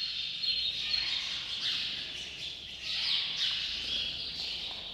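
Small birds chirping and twittering in a high, busy chorus, swelling about once a second.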